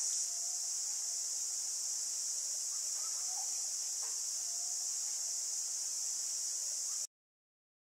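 Steady, high-pitched insect chorus, typical of crickets or cicadas in tropical woodland, with a few faint bird calls beneath it. It cuts off suddenly about seven seconds in.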